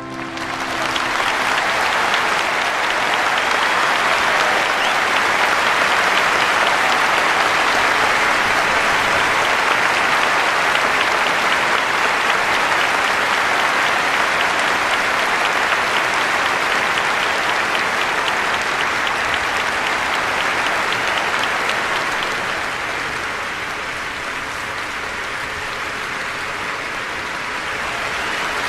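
Audience applause, a dense crowd clapping, swelling in as orchestral music ends and then holding steady, easing slightly in the last few seconds.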